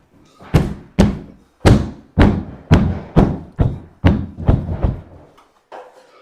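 About ten dull thumps in quick succession, roughly two a second, as a tight-fitting upholstered wall panel is knocked into place against the glued wall.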